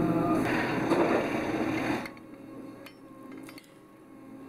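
A steady machinery hum with background noise cuts off abruptly about two seconds in. It is followed by a few light metallic clinks of a hand tool on the valve rod's packing gland nuts as the gland is worked down on fresh packing.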